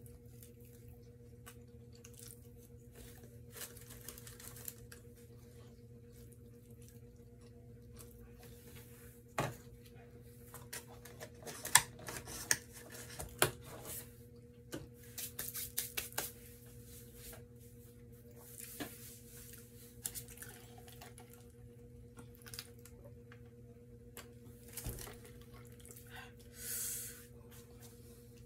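Close-miked eating and food-handling sounds: scattered clicks, taps and short rustles of fingers, fries and paper wrappers, busiest in the middle, with a brief hiss near the end. A steady low electrical hum runs underneath.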